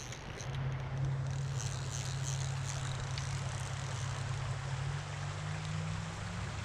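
Shallow creek water running steadily, with a steady low rumble underneath.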